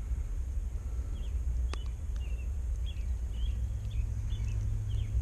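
Small birds chirping in short, repeated notes over a low steady rumble, with one sharp click about two seconds in.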